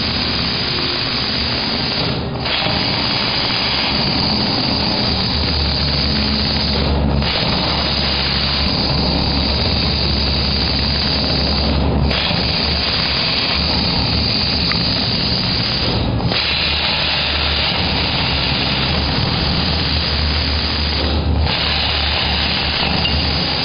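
CNC plasma cutter running: a loud, steady hiss of the cutting arc and air over a low hum. The hiss drops out briefly about every five seconds, once near each of five spots, as the arc stops between cuts.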